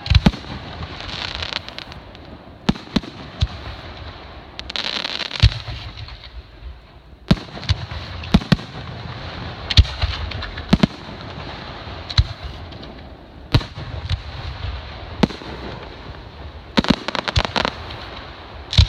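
Aerial fireworks shells bursting overhead: more than a dozen sharp bangs at irregular intervals, with a rapid run of crackling reports about two seconds before the end.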